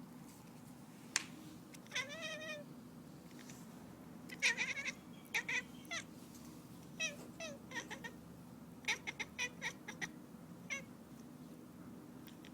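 A domestic cat making a series of short, odd meows and chirps: one longer call that rises and falls about two seconds in, then a dozen or so brief calls in quick clusters. A sharp click sounds about a second in.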